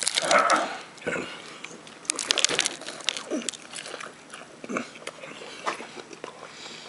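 A person biting into and chewing a crispy fried chicken breast, the breading crunching in a run of crackles that is loudest about two seconds in.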